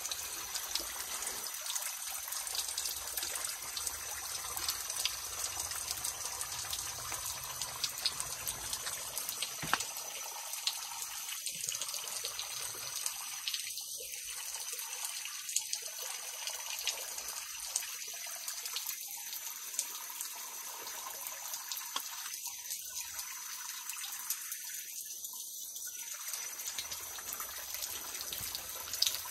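Thin streams of water trickling and dripping off a limestone rock overhang onto rock and a shallow pool, a steady splashing made up of many small drops.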